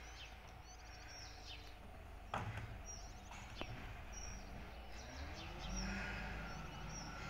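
Small birds chirping in short repeated bursts over a steady low background rumble, with one sharp knock about two seconds in.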